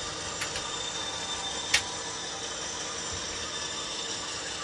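Model train running along the layout's track: a steady mechanical running noise with a couple of light clicks about half a second in and one sharp click a little under two seconds in.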